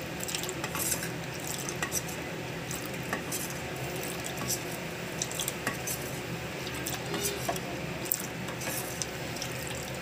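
Steel spoon stirring a thin custard mixture in a glass bowl, clinking irregularly against the bowl's sides.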